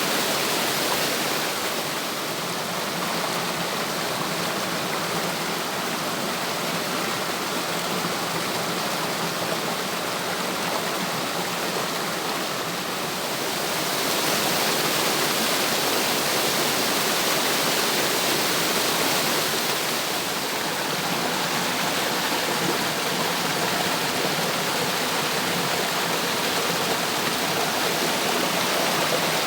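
Water rushing steadily over a small cascade, a little louder from about halfway through.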